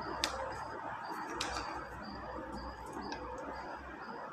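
Coloured paper being folded and handled, with three sharp light clicks over a steady low room hum.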